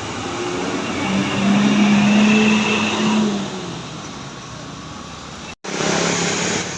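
A bus passing close by with loud engine and road noise, sounding a steady horn note for about two seconds as it goes by. The sound breaks off abruptly near the end, then loud passing-traffic noise resumes.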